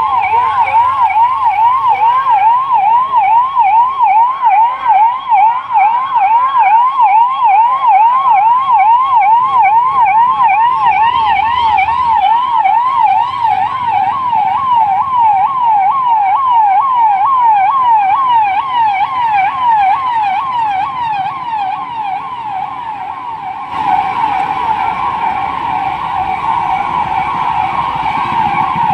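Police vehicle sirens in a fast up-and-down yelp, several rises and falls a second, with more than one siren overlapping; the sound changes abruptly near the end.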